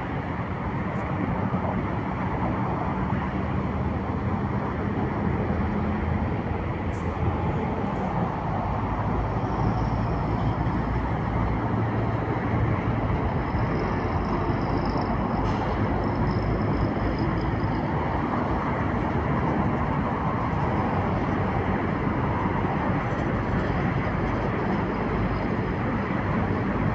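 Steady road traffic noise from vehicles on a nearby road, an even, constant hiss without breaks.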